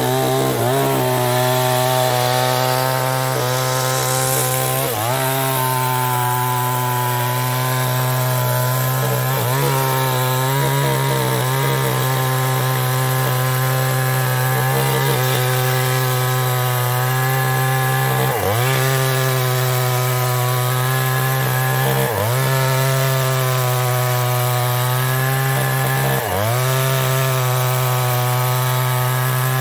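Chinese-made two-stroke chainsaw running at full throttle while cutting into a large mahogany trunk. Its engine pitch dips and recovers about every four seconds as the chain bogs in the cut.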